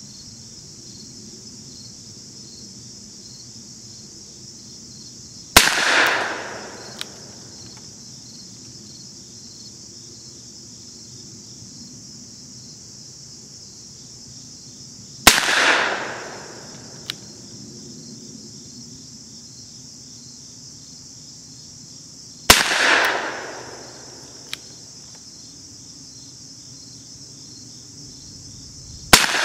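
Four shots from a Webley Mk VI revolver firing .455 Webley factory ammunition, each a sharp report that echoes away over about a second, spaced seven to ten seconds apart, the last right at the end. A faint click follows each shot a second and a half or so later.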